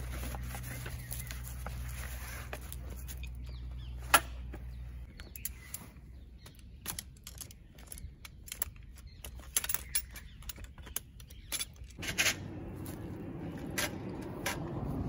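Scattered clicks, taps and light knocks of folding camp furniture being handled and set up, ending in a denser spell of rustling and knocking. A low steady hum fades out in the first few seconds.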